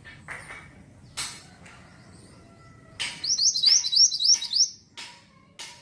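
Pied bushchat (mantenan) singing: a few short, scattered chirps, then about three seconds in a loud, fast run of about seven repeated high notes lasting about a second and a half, followed by two more short chirps.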